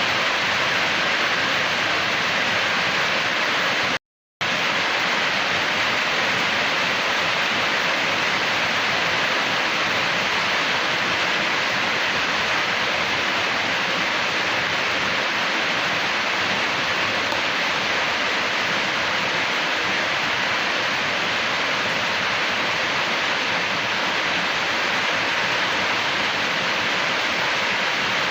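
Steady rushing of water, with a short break of silence about four seconds in.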